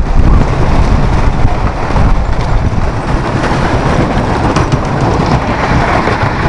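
Wooden roller coaster train running at speed along its track, a continuous rumble and clatter heard from a seat on the train.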